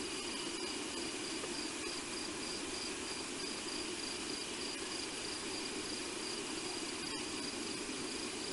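Night insects, likely crickets, calling continuously: a high, rapidly pulsing trill with fainter steady calls at lower pitches, over a steady low hiss.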